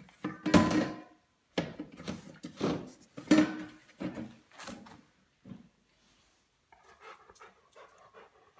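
A dog breathing and snuffling close to the microphone: a series of loud, breathy huffs through the first few seconds, followed by fainter scuffling near the end.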